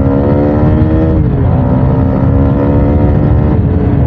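Honda Supra GTR 150's single-cylinder 150 cc engine accelerating through the gears: the revs climb, fall with an upshift a little over a second in, climb again and fall with another upshift near the end.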